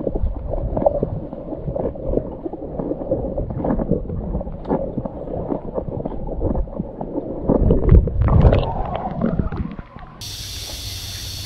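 Muffled underwater sound from a camera submerged in clear spring water: low rumbling and gurgling with irregular clicks and knocks, loudest about eight seconds in. About ten seconds in the camera breaks the surface and a steady open-air hiss cuts in.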